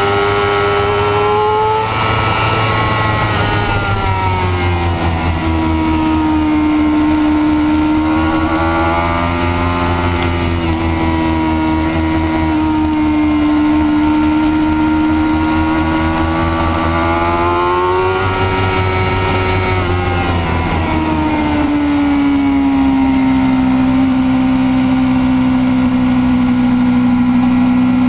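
Racing motorcycle's engine heard close from the bike itself, held at high revs through long corners. Its pitch dips about two seconds in and again about two-thirds of the way through as the throttle is rolled off and back on, then settles lower near the end.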